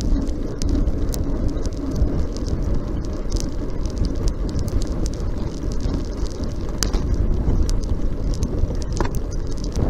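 Road-bike riding noise: a steady low rumble of wind and tyres on the road, with scattered light clicks and rattles from the bike.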